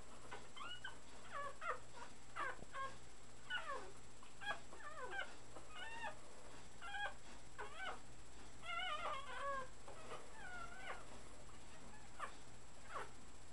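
Three-week-old puppies whimpering and squeaking while nursing: a string of short, high, sliding whines, with a longer wavering run of them about nine seconds in.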